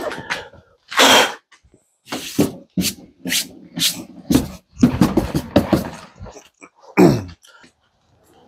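A person moving things about in a workshop: a run of irregular rustles, scrapes and knocks of uneven length, with a longer sliding scrape with falling pitch near the end.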